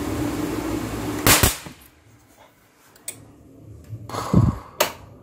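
A loud sharp bang from an accidental short circuit on a live high-voltage switch-mode power supply board as the test probe slips, caused by carelessness. The steady fan hum cuts out right after as the power trips, and a smaller sharp crack follows near the end.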